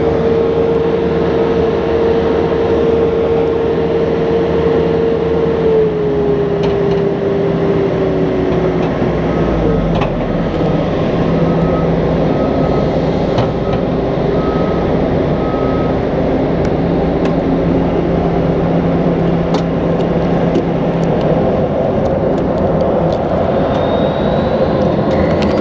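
Aircraft pushback tug driving across the airport ramp, its engine running steadily under heavy wind and road noise. A steady whine dips in pitch about six seconds in and fades away a few seconds later.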